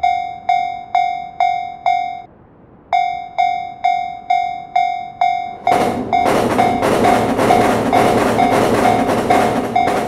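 Japanese railroad crossing warning bell ringing its kan-kan ding about twice a second, breaking off for a moment about two seconds in and then starting again. From about six seconds in a loud rattling clatter joins the bell.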